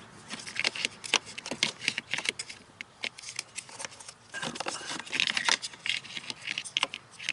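A pleated cabin air filter and its plastic housing cover being pushed and fitted into place: irregular clicks, scrapes and rustling of plastic and filter media, busiest about five seconds in.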